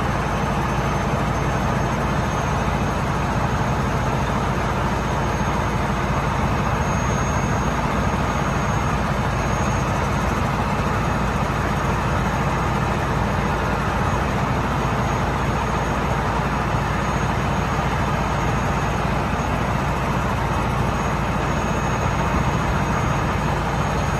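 Heavy wrecker's diesel engine running steadily at a constant pitch and level while it drives the winches pulling a stuck truck.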